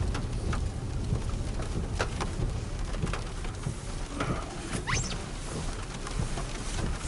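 Rain pattering on a car as it drives, a steady low cabin rumble with scattered sharp drop ticks. A short squeak about five seconds in.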